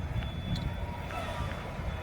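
Wind buffeting the microphone outdoors: an uneven low rumble.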